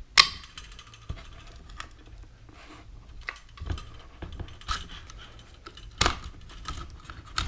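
Sharp metallic clicks and knocks, the loudest one right at the start and a few more spaced over the following seconds, with light scraping between: a shotgun's trigger group being worked loose and slid out of the receiver.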